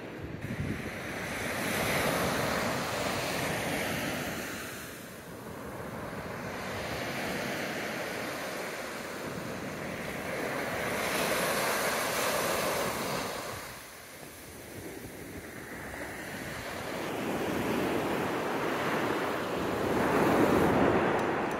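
Ocean surf breaking and washing up the beach, swelling and fading in three long surges, with wind buffeting the microphone.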